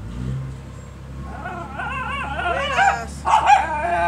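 A dog whining and yipping in wavering calls, breaking into a few short barks about three seconds in, over a low steady hum.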